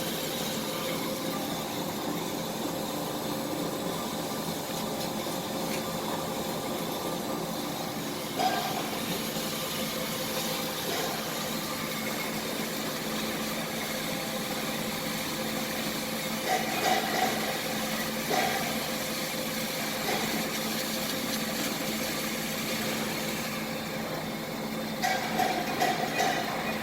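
Hyd-Mech H-22A automatic horizontal band saw running with a steady hum, with a few short knocks about a third of the way in, around two thirds in, and near the end.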